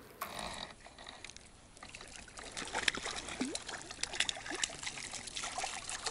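A hooked crucian carp splashing and thrashing at the water's surface as it is played in toward the bank. The sound is dense, irregular splashing and dribbling that gets busier about two seconds in.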